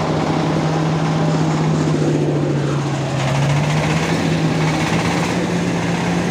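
Corn-cracking machine running steadily under its 32 HP engine, a constant hum with a dense rattle of kernels being broken and pouring through.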